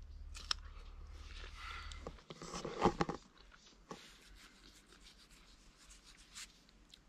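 Crisp melon being bitten into and eaten, with a loud burst of crunching a little over two seconds in and soft clicks and rustles around it.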